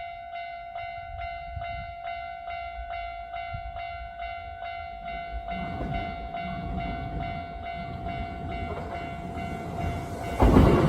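Railway level-crossing warning bell ringing in a steady rhythm of about two to three strikes a second, the sign that a train is approaching. Near the end a train arrives and passes loudly.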